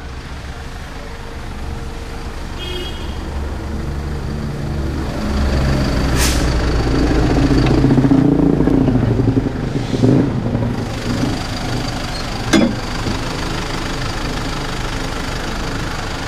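Mercedes-Benz Sprinter 315 CDI's four-cylinder turbodiesel engine idling steadily, with a couple of sharp knocks in the second half.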